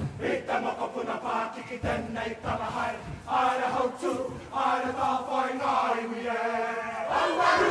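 Kapa haka group of men and women chanting in unison in short rhythmic phrases. About three seconds in, they move into long held sung notes.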